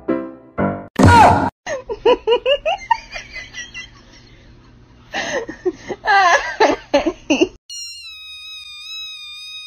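A loud rushing burst about a second in, then two spells of high, sliding squeals and laughter-like cries. From about eight seconds a newborn kitten cries one long, high meow that slowly drops in pitch.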